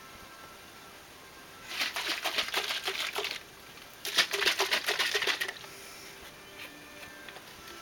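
Plastic paint containers being handled: two spells of rapid clicking and rattling, the first starting a little under two seconds in and the second about four seconds in, each lasting about a second and a half.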